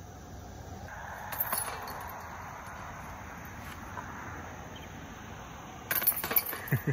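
Light metallic jangling and clinking, once about a second in and again in a longer cluster near the end, over a steady outdoor background.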